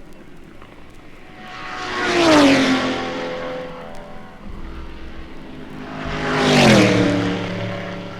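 Two racing cars pass at speed one after the other, about four seconds apart, each engine note rising in loudness and then dropping sharply in pitch as it goes by.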